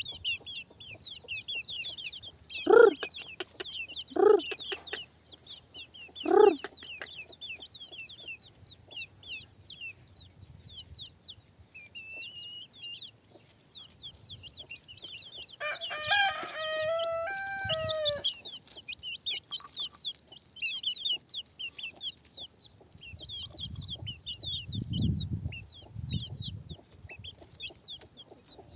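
Chickens clucking, a few short clucks in the first few seconds, and one rooster crow of about two seconds a little past the middle, over continual high bird chirping.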